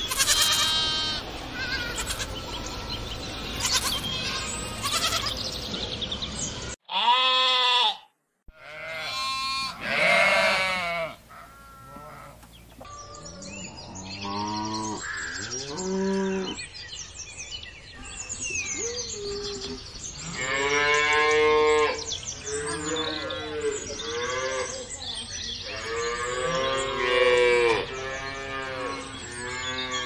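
Sheep and lambs bleating over one another, then after a brief break a few loud calls, and then cattle mooing in a run of long, lower calls, several in a row.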